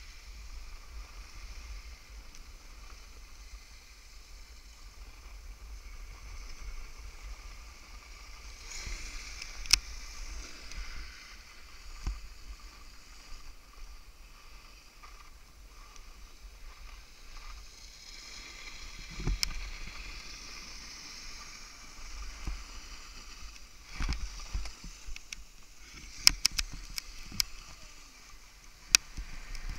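Skis hissing and scraping as they glide over the snow, the hiss swelling at times, with a few sharp clicks near the end.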